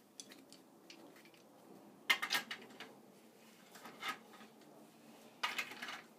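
Steel pipe wrenches working a threaded fitting on black iron pipe: a few short metallic clanks and scrapes, about two seconds in, again around four seconds, and a longer one near the end.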